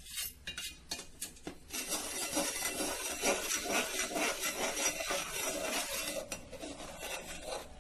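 A utensil scraping and knocking against a steel pot as rice flour is stirred into boiling water to make a stiff cooked dough. There are a few knocks at first, then quick, continuous rasping strokes from about two seconds in.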